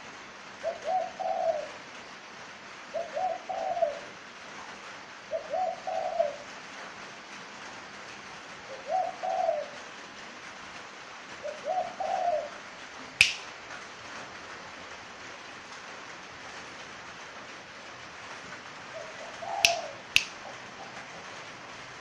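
Caged spotted dove cooing, a short phrase repeated every two to three seconds, then a pause and one more phrase near the end. The bird is in heavy moult, which the owner says keeps it from giving its full coo. There are sharp clicks about halfway through, and two more near the end.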